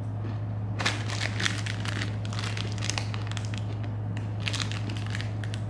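Plastic wrapper of an Oreo package crinkling and crackling in irregular clusters as it is handled, starting about a second in. A steady low hum runs underneath.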